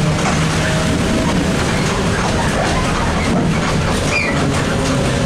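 ZiU-683B articulated trolleybus heard from inside while running: a steady hum of the drive over road noise, with scattered light clicks and rattles.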